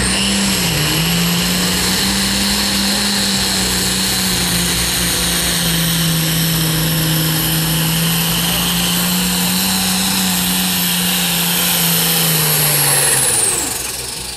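Red International Harvester pulling tractor's diesel engine running flat out under load, dragging the weight sled, with a steady drone and a high whistle that climbs in the first second. Near the end the throttle comes off, and the engine and the whistle wind down.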